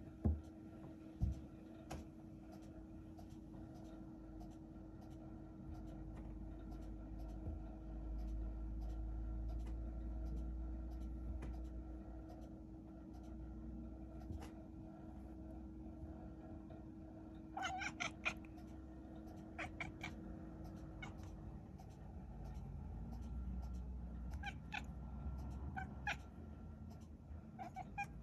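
Domestic cat giving short meows in quick clusters, a run of several about two-thirds of the way in and more near the end. A few sharp taps sound near the start.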